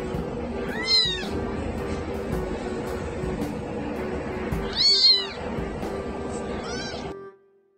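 A very young kitten mewing three times in short, high-pitched mews that rise and fall, about a second in, about five seconds in (the loudest) and just before seven seconds, over background music. The sound cuts off shortly before the end.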